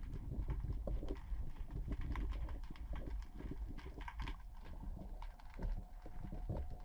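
Irregular clicks and knocks over a low rumble, the water and handling noise picked up by a camera held into the sea on a bamboo pole. A faint steady tone comes in about five seconds in.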